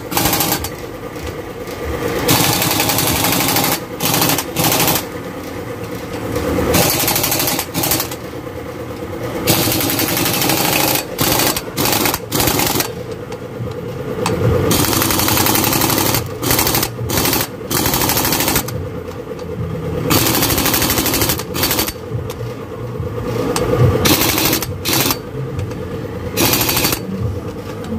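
Impact wrench hammering bolts tight on the engine's flywheel, in a series of short bursts that start and stop again and again.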